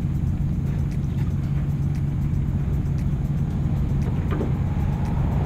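A steady low engine hum that runs on without change.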